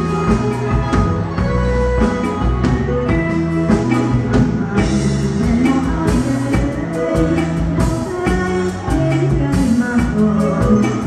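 Live band playing Lao lamvong dance music, with a drum kit keeping a steady beat under sustained instrument notes.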